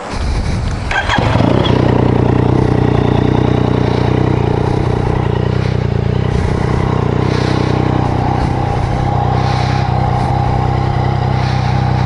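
Yamaha MT-09's three-cylinder engine starting about a second in, then idling steadily.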